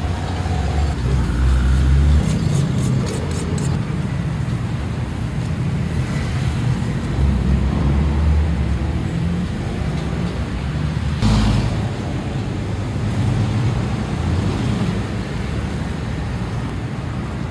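Road traffic rumbling, with passing vehicles swelling and fading. A few light clicks come about three seconds in, and a single sharp thump about eleven seconds in.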